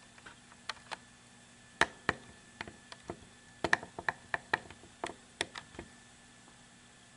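Scattered sharp clicks and taps of computer keys, bunched in a quick run around the middle and stopping about a second before the end, over a faint steady hum.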